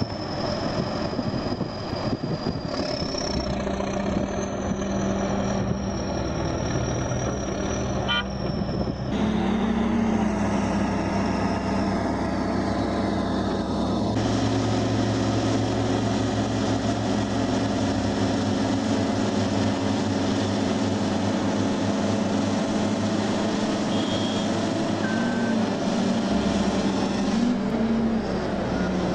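Heavy vehicle engine running steadily, with a high whine in the first part. About nine seconds in the sound changes abruptly to another steady engine, slightly louder.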